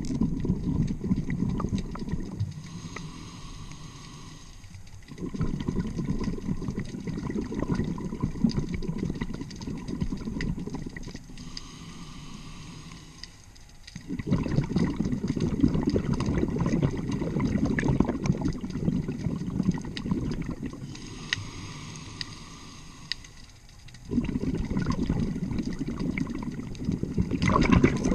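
Scuba diver breathing through a regulator underwater: long exhales of rumbling, gurgling bubbles, broken three times by a quieter hissing inhale of about three seconds. Slow, relaxed breaths, roughly one every ten seconds.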